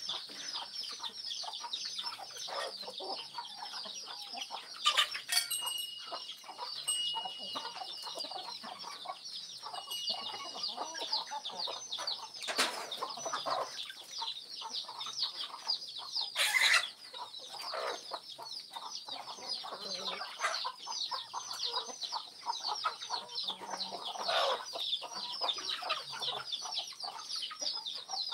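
A flock of chickens clucking and cheeping as they feed, with rapid high peeps running on without a break. A few sharp, loud noises stand out near the middle.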